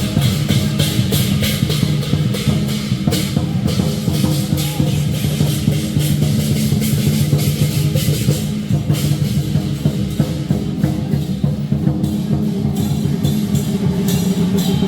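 Lion dance percussion: a large Chinese drum beaten in dense, fast strokes under clashing cymbals and gong, playing continuously.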